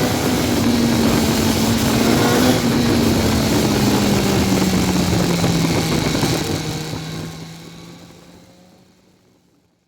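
BMW S1000R's inline-four engine with an Akrapovic exhaust, running at a steady speed with a slowly sinking pitch. About two-thirds of the way in it fades out to silence.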